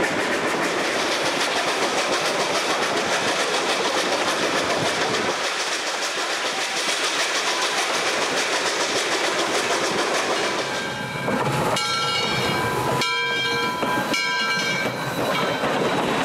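Lionel O-scale model freight train rolling on tubular three-rail track, a steady metallic rumble of the wheels. In the last few seconds several high steady tones sound together, broken twice.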